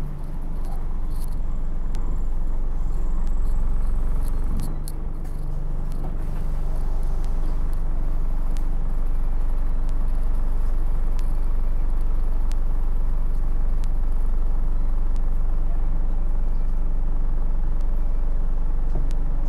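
Bus running, heard from inside the passenger saloon as a steady low engine-and-road drone, with scattered light rattles and clicks. The engine note eases off briefly about five seconds in, then settles back.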